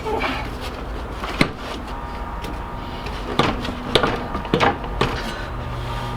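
Electric drill boring out the seized rear-fork suspension pivot bolt of a Moulton bicycle. The motor runs steadily, with a few sharp knocks.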